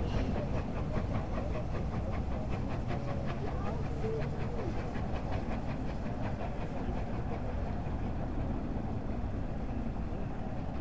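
Steam locomotive pulling away, its exhaust chuffing in a quick even beat of about four to five chuffs a second over a low rumble. The chuffs grow fainter about halfway through.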